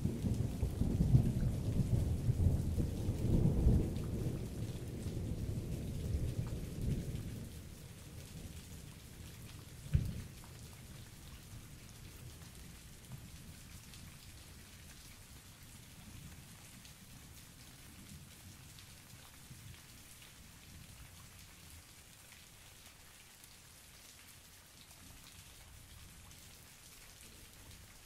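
Thunder rumbling low and long for the first seven seconds or so, then dying away, over a steady hiss of rain. A single short low thump comes about ten seconds in, and after it only the rain goes on, quieter.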